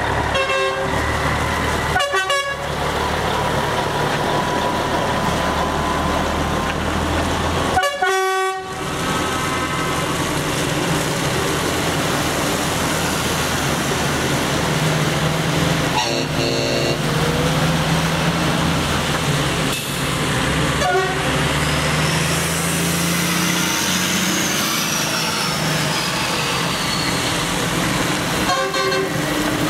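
Parading lorries driving slowly past with their diesel engines running and tyres hissing on wet tarmac. Several short truck-horn blasts are sounded through it.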